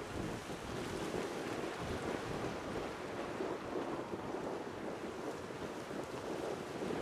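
Wind buffeting the microphone: a steady rush with an uneven low rumble.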